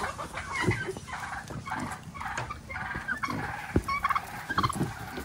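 Turkeys gobbling again and again, with a few dull thumps among the calls.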